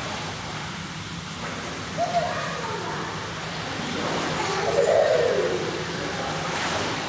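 Water splashing over the steady, echoing wash of an indoor swimming pool, with a child's short vocal sounds about two seconds in and again around five seconds.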